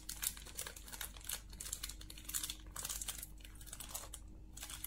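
Clear plastic bags of resistors crinkling and rustling as they are handled, in quick irregular crackles.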